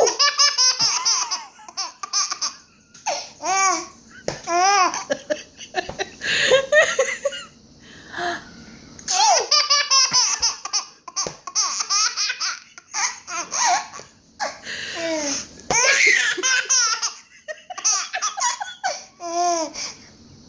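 Baby laughing hysterically at sneezing, in about eight bouts of quick, high-pitched squealing laughs with short pauses between.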